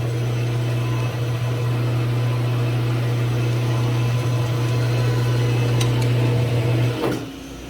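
Metal lathe motor running steadily while drilling through a metal part, then switched off about seven seconds in.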